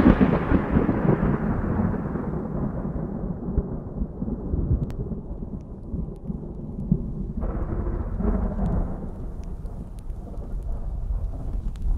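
Thunder after a close lightning strike, rolling away into a low rumble, with a second swell of rumble about seven seconds in and faint scattered crackles near the end.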